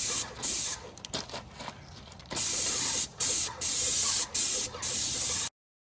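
Paint being sprayed in a run of short hissing bursts, each a fraction of a second to about a second long, with a pause of about a second in the middle. The sound cuts off abruptly near the end.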